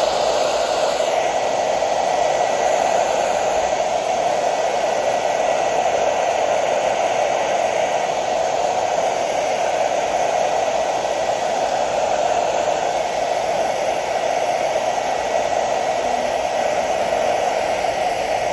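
Handheld blow dryer running steadily on one setting, a continuous rush of air with a faint thin motor whine, heating a plastic helmet panel to soften it for bending.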